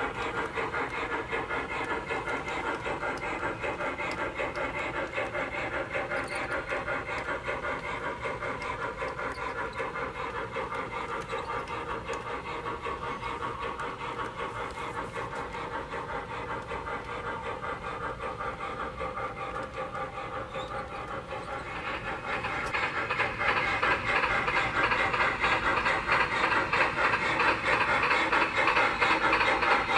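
MTH model steam locomotive's onboard sound system (Union Pacific 2-8-2) playing a rapid, even steam chuffing as the train runs. It grows louder about three quarters of the way through.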